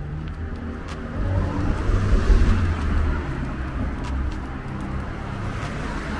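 Road traffic noise, a low rumble with a vehicle passing on the adjacent road, swelling to its loudest about two seconds in and then easing.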